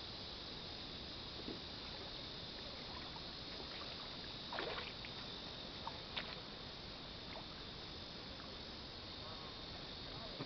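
Faint splashing of people wading and swimming in a river, heard as a short splash near the middle and a couple of small sharp ticks, over a steady high hiss.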